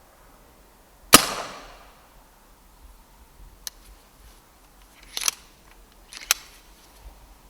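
A single shot from a Brocock Ranger XR pre-charged pneumatic air rifle about a second in: a sharp crack with a short fading tail. A few quieter sharp clicks and clacks follow about two to five seconds later.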